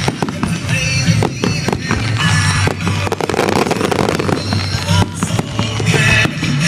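Fireworks bursting and popping in quick succession, with a dense patch of crackling about three to four seconds in, over loud music with a steady bass.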